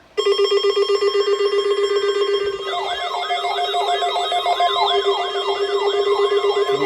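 Electronic emergency-alert tones: a loud, buzzy steady alarm tone with many overtones starts just after the beginning. About two and a half seconds in, warbling siren tones that rise and fall two to three times a second join it.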